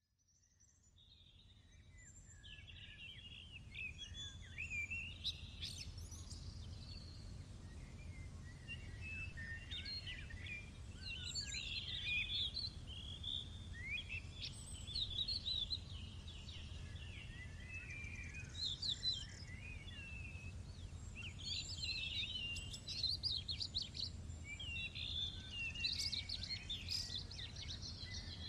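Small birds singing and chirping, many short warbling calls over a steady low rumble, fading in over the first few seconds.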